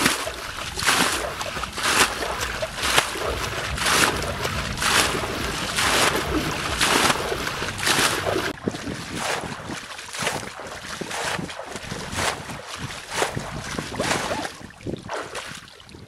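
Muddy water gushing and splashing over grass in repeated surges about once a second, growing weaker near the end.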